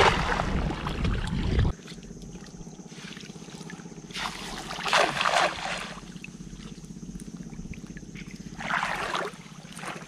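A cast net slapping down on the water in a spray of splashes, then water sloshing in two swells as the net is hauled back in by its rope.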